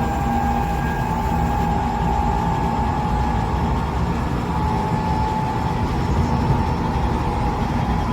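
Running noise inside a Tokyo Metro 8000 series electric train car: a steady low rumble under a whine that edges slightly up in pitch early on. The car is a known abnormal-noise car with a muddy, dissonant sound, which the uploader puts down to only one axle of the bogie having had its wheels reprofiled.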